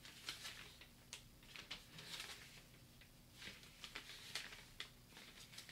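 Faint rustling and light ticks of a small folded paper booklet being unfolded and handled.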